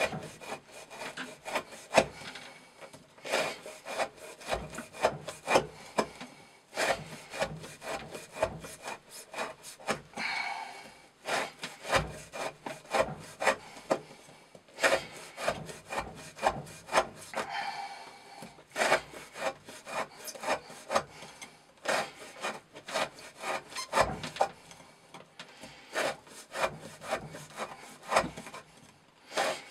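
A Chris Reeve Sebenza 21 folding knife slicing through rope laid on a wooden board, one sharp cut after another at about one or two a second. Each stroke ends in a knock of the blade on the wood, and now and then the blade is drawn in a longer sawing stroke.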